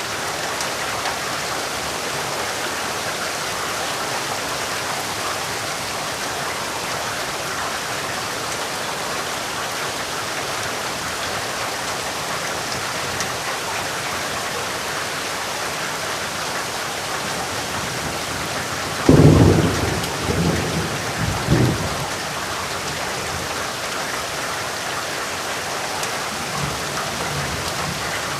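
Steady rain falling. About two-thirds of the way through, a sudden thunderclap breaks in and rumbles on in a few swells for about three seconds before the rain alone returns.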